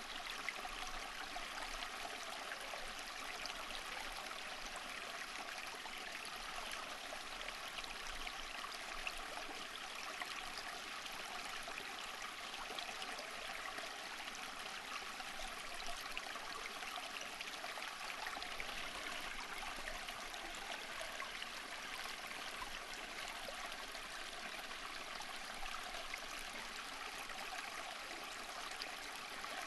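Steady flowing water of a stream, an even rushing and babbling with fine trickling detail.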